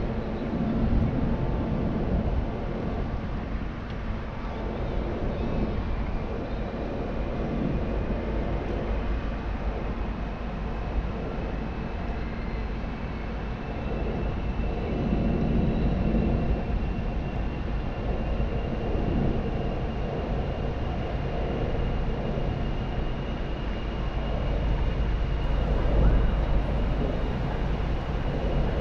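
Great Lakes thousand-foot bulk freighter's engines and exhaust passing close by, a steady low rumble with a faint high whine over it.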